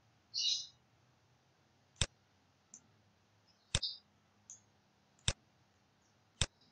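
Computer mouse clicking: four sharp, faint clicks spaced a second or more apart, with a few softer ticks between. A brief high chirp sounds about half a second in.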